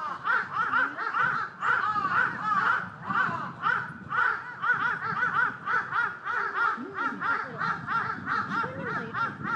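An animal calling in a long, unbroken series of short, high, arched calls, about three a second.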